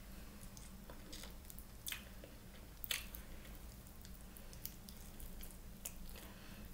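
Close mouth sounds of a person eating a grilled barbecue chicken wing: soft, wet biting and chewing as meat is pulled off the bone, with a few sharp clicks, the loudest about two and three seconds in.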